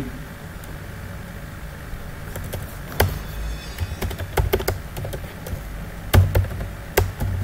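Typing on a computer keyboard: irregular keystrokes, sparse at first and more frequent from about two seconds in, with one louder strike about six seconds in.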